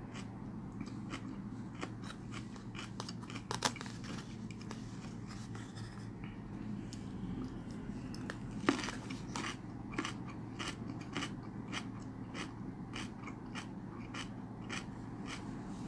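A man chewing raw spoon worm (gaebul) with his mouth closed: regular wet, crunchy chewing clicks, a little under two a second, with a louder crunch about nine seconds in.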